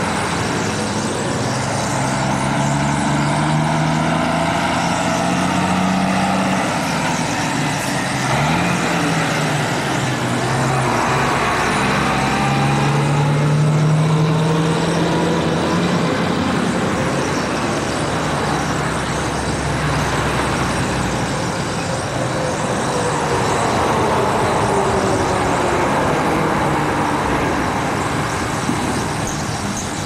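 Steady highway traffic: cars and trucks passing by, their engine tones slowly falling in pitch as they go past.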